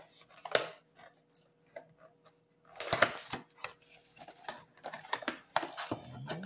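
Cardboard trading-card box being handled and opened by hand: scattered taps, scrapes and rustles of paperboard, loudest about three seconds in and busier near the end as the packs are slid out. A faint steady hum sits underneath.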